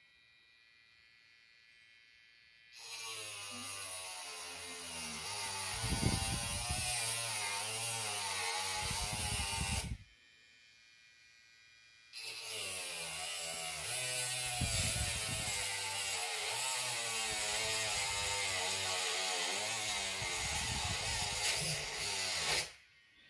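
A NorthridgeFix Grinding Pen NF.V2's small motor spinning a cutting disc against a connector's metal pin, with a high grinding hiss. It runs twice, from about three seconds in until ten seconds and again from about twelve seconds until near the end, with a short stop between. Its whine wavers in pitch as the disc bites into the metal.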